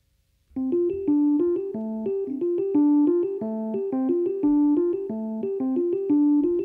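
Red Nord stage keyboard played solo: a repeating, rhythmic figure of piano notes that starts about half a second in.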